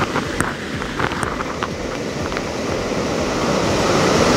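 Rough sea surf washing up the beach, with wind buffeting the microphone; the wash swells louder near the end. A few faint clicks sound in the first couple of seconds.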